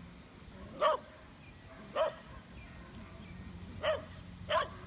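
A dog barking: four single sharp barks, unevenly spaced about one to two seconds apart.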